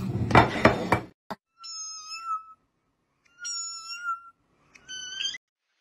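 A loud burst of noise with clicking in the first second, then a cat meowing three times: long, high, fairly level calls, the last one rising at its end.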